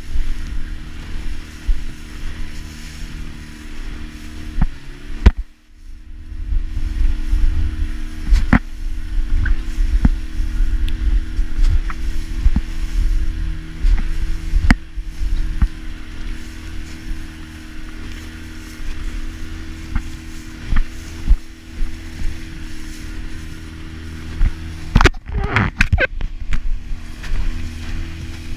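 Outboard motor of a RIB running steadily at speed, with wind rumbling on the microphone and the hull knocking sharply as it slaps over the waves. The sound drops out briefly about five seconds in.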